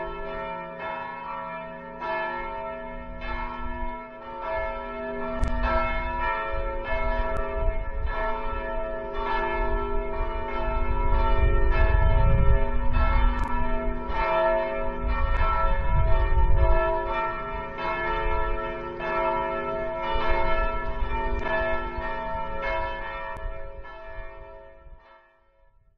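Church bells ringing from the tower, with a fresh strike about once a second and a low rumble beneath in the middle. The ringing fades away near the end.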